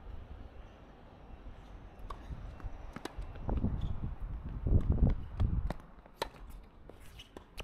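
Wind buffeting the microphone in irregular gusts, strongest in the middle, with a few sharp knocks from tennis play on a hard court.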